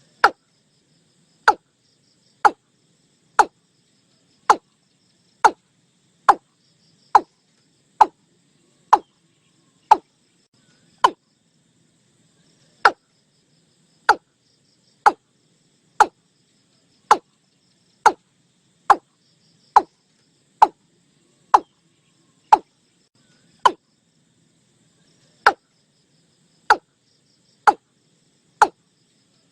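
Watercock (Gallicrex cinerea) calling: a steady series of short, sharp single notes about one a second, broken by a slightly longer pause twice. Faint insect chirring runs underneath.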